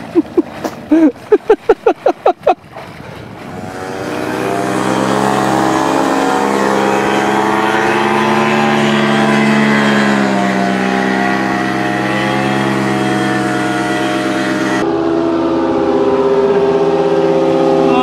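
A quick run of loud, pitched voice bursts, like laughter, for the first two seconds or so, then a steady engine drone sets in whose pitch slowly drifts and dips partway through.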